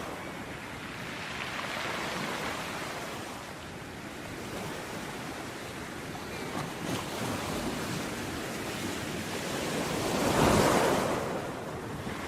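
Ocean waves breaking and washing on a beach, a steady surf with swells that rise and fall, the biggest wave breaking about ten seconds in.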